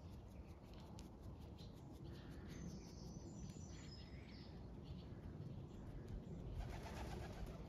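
Faint outdoor ambience with a steady low rumble; a small songbird gives a short run of high chirping notes about three seconds in, and there is a brief rustle near the end.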